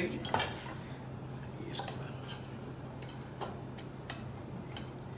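Scattered light clinks and taps of a metal kitchen utensil against cookware, about seven short knocks spread over a few seconds, over a steady low hum.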